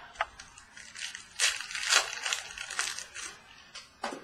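Trading cards and their packaging being handled: a few sharp clicks, then about two seconds of scratchy rustling and crinkling, and a sharp click near the end.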